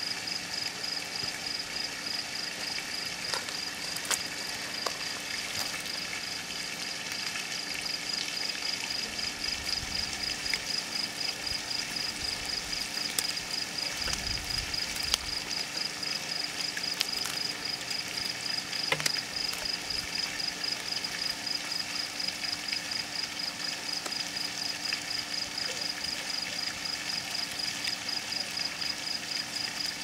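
Outdoor evening ambience: a high-pitched call pulsing steadily about three times a second, over a faint low steady hum, with a few soft scattered clicks.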